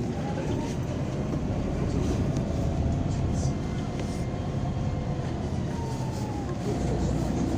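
Cabin sound of a MAZ-203 city bus driving: a steady low rumble, with a thin whine that rises in pitch as the bus speeds up about half a second in and falls away about six seconds in as it slows.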